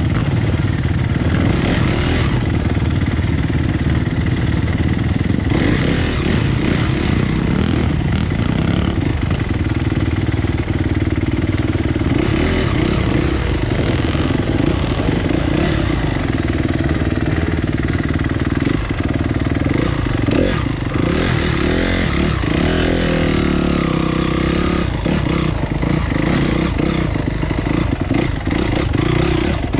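Off-road dirt bike engine running under way, its revs rising and falling, with short knocks and rattles in the second half.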